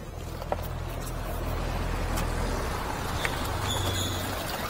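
Pontoon boat's outboard motor idling with a steady low hum, with a few light clicks as the plastic console compartment and a camera are handled.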